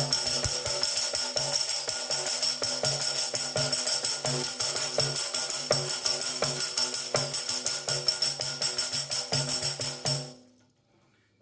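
An unmodified headed jingle tambourine of the American type, not yet damped, played in a fast, even rhythm for about ten seconds, then stopping. Bright jingles ring over low thumps from the head.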